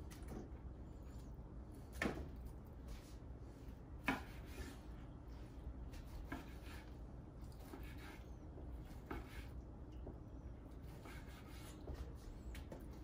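Knife cutting smoked brisket point into cubes on a wooden cutting board: irregular faint knocks and scrapes of the blade against the board, with two louder knocks about two and four seconds in.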